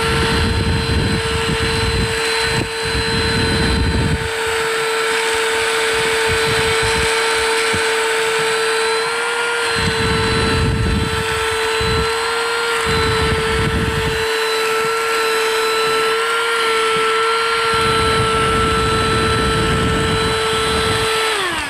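Cordless handheld vacuum cleaner's small motor running with a steady high whine while it sucks up gravel, with patches of coarser rumbling noise coming and going. Near the end the motor is switched off and winds down, its pitch falling.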